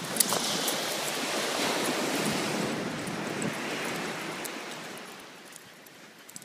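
Ocean surf washing on the beach, mixed with wind buffeting the phone's microphone, fading down over the last second or so.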